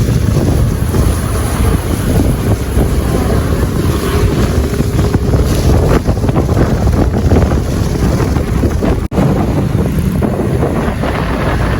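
Heavy wind buffeting on the microphone, a loud steady rush, broken by a brief dropout about nine seconds in.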